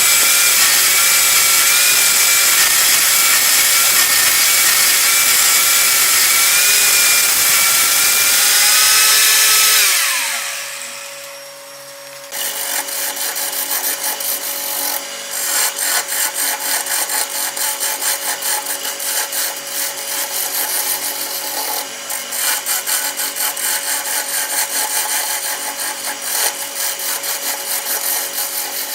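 A homemade electric wood lathe runs with a tool working the spinning wood, then is switched off and winds down with a falling whine about ten seconds in. After a short lull, fast repeated scraping strokes on wood follow, like hand rasping or sanding.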